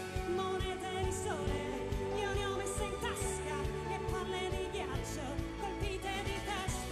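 Pop ballad sung live by a female lead singer with vibrato, backed by an orchestra and a drum kit keeping a steady beat with cymbal crashes.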